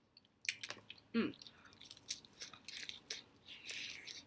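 Close-mic eating sounds: biting into and chewing a crispy fried chicken wing, an irregular run of sharp crunches, with a brief vocal hum about a second in.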